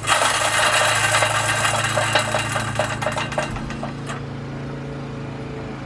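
Front wheel of a reel lawn mower spun by hand, free-wheeling with a whir and rapid clicking that slows and fades over about four seconds. The wheel is freshly oiled and spins smoothly.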